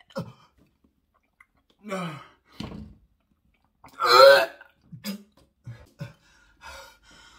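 A man gagging and retching in a series of short heaves, the loudest about four seconds in. It is his gag reflex at the slimy texture of a mouthful of escargot.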